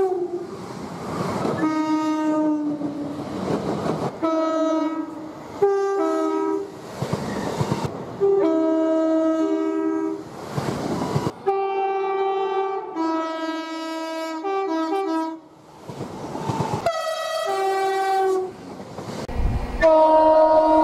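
Train horns sounded again and again, mostly two-tone calls with a high and a low note in turn, including a quick run of short alternating toots about two-thirds of the way through. Between the horn calls comes the rush and clatter of trains passing at speed.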